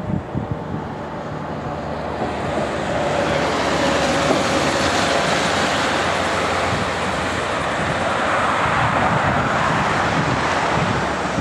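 Distant Airbus A321 jet airliner on approach: a steady, broad rushing engine noise that builds over the first few seconds and then holds, with wind on the microphone.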